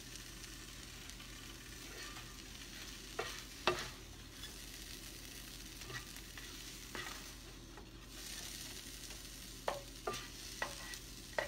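Egg and bread sizzling softly in a nonstick frying pan, with a spatula scraping and clicking against the pan a few times; the sharpest click comes a little under four seconds in.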